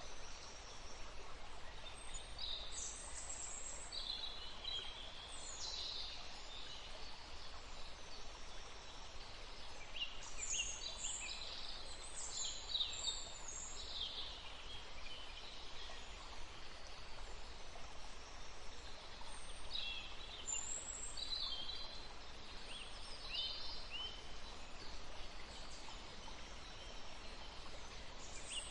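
A woodland stream flowing steadily, with birds chirping in short high bursts that come and go in clusters.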